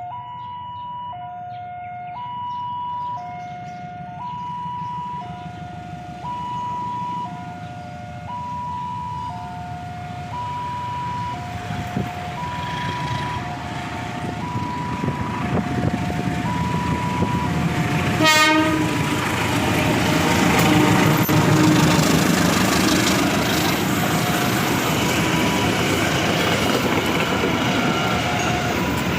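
A two-tone electronic warning alarm alternates between a higher and a lower note about once a second. A locomotive-hauled train then approaches with a rumble that grows louder from about halfway, marked by a sharp click near the two-thirds point. It passes at its loudest shortly after, with the alarm still faintly going underneath.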